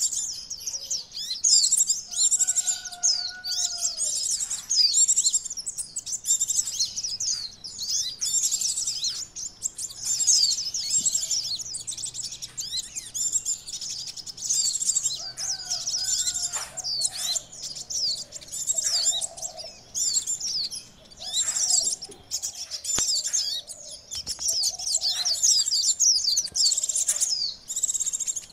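Sunbirds twittering noisily in a fast, unbroken stream of high, thin chirps, as in a lure call used to draw in sunbirds. Softer, lower calls break in now and then.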